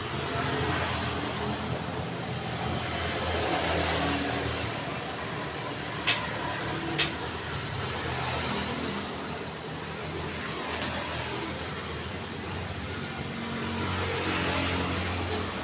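Road traffic passing in a steady rush, swelling and fading as vehicles go by. About halfway through, three sharp knocks in under a second, the first and last much louder than the traffic.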